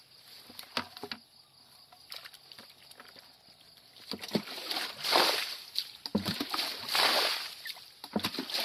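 Buckets of water poured out through a mesh dip net, splashing onto wet grass, two loud pours in the second half. Before them, only faint rustling and small knocks.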